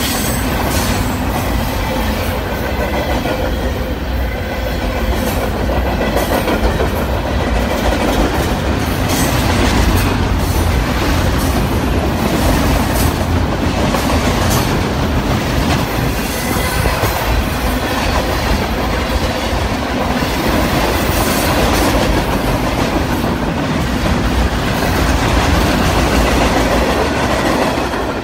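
Freight train of loaded flatcars rolling past close by: a steady rumble of steel wheels on the rails with clickety-clack over the rail joints.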